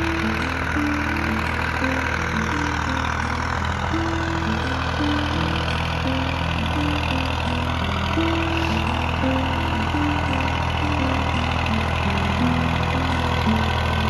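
Steady low hum of a tractor engine working, with a background music melody stepping from note to note over it.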